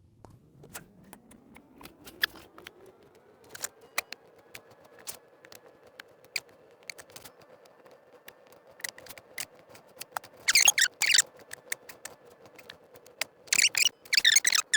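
A small electric cutting tool spins up to a steady whine over the first few seconds, with scattered clicks, then two spells of loud, harsh cutting noise near the end as it bites into the plastic.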